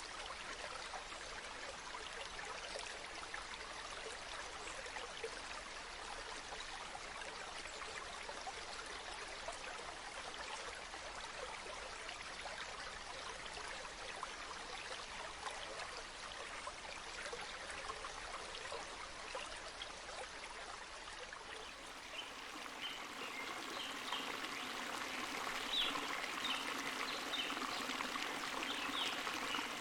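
Water running and trickling steadily from a natural spring. About three quarters of the way through the sound changes and grows louder, with more distinct splashing and dribbling.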